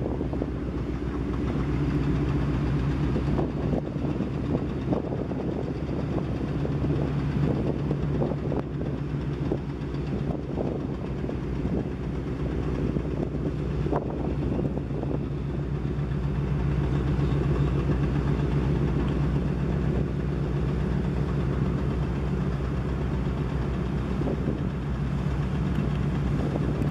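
An engine running steadily, a low droning hum with a fast even throb, alongside the splash of the harbour water.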